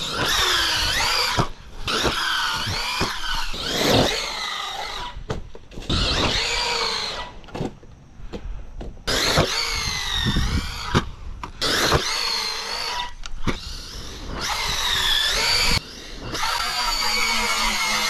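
Redcat Valkyrie MT RC monster truck's electric motor and drivetrain whining, the pitch rising and falling with the throttle, in short clips that cut off abruptly one after another. There is a loud thump about four seconds in.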